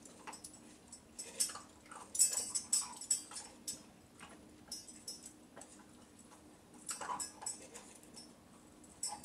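Small dog eating dry kibble from a hand: clusters of short, crisp crunches and clicks, coming in several bursts with pauses between them.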